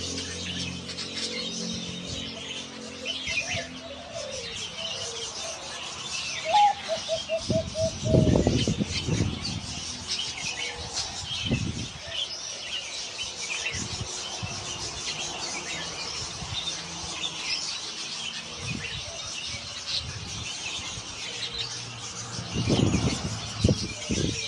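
Zebra dove cooing in a short, rapid run of repeated notes about a third of the way in, over a steady chatter of many small birds chirping. Loud low rumbles, like wind on the microphone, come a few times and are the loudest sounds.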